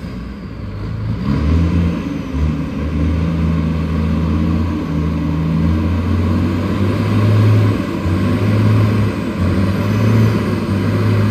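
Heavy diesel engine of a Western Star truck pulling a lowboy trailer, running under load with a deep, steady drone. The engine note rises about a second and a half in, then holds with small step changes in pitch as the truck comes on.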